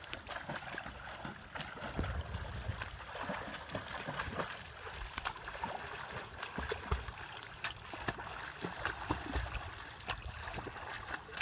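A swimmer's front-crawl arm strokes and flutter kick splashing in shallow sea water: irregular splashes over a steady wash of water.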